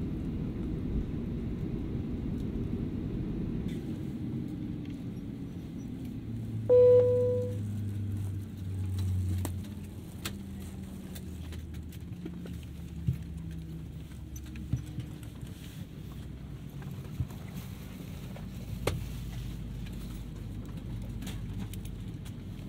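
Cabin noise inside a Boeing 737-500: a steady low rumble, with low hums that slowly fall in pitch. A single loud chime sounds about seven seconds in. Scattered sharp clicks follow.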